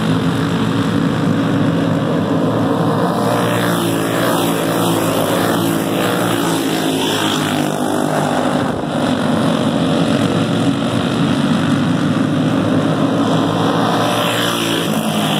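Several racing go-kart engines running hard together as the pack laps the dirt oval, a steady drone whose pitch drifts up and down as the karts go round.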